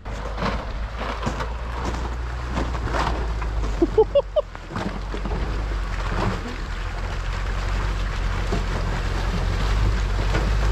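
Off-road truck's engine running steadily under load as it climbs out of a winter river crossing up a snowy bank, its tyres churning through snow and slush; the low engine drone grows louder as the truck approaches.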